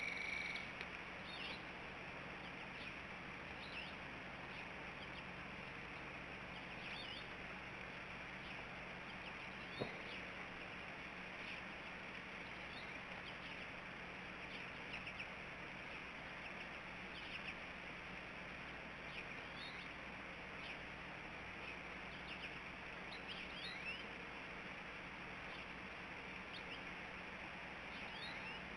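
Faint, scattered chirps of small birds over a steady outdoor hiss, with a held high call at the very start and a single sharp click about ten seconds in.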